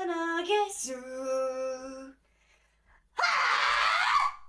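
A woman's voice singing pitched notes, ending in a held lower note, then after a short pause a harsh, noisy vocal scream of about a second: a practised distorted scream.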